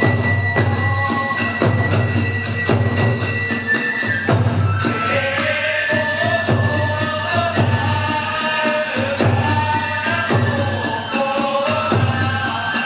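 Kagura hayashi music: taiko drum and hand cymbals beating a quick, even rhythm, with a high held note for the first few seconds, then a wavering melody line from about five seconds in.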